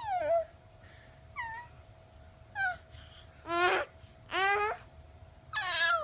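Baby babbling in high-pitched squeals: about six short calls, several sliding down in pitch, with two longer wavering ones in the middle.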